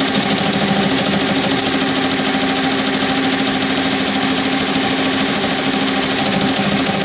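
Tajima TFMX-C1501 single-head, 15-needle embroidery machine running and stitching, a steady fast clatter over a steady hum, with a rattling sound that it is not meant to make.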